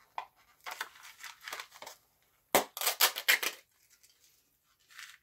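Plastic packet of dark chocolate pieces from a dessert kit being opened by hand: crinkling, then a louder run of sharp rasping tears about halfway through, and one more crinkle near the end.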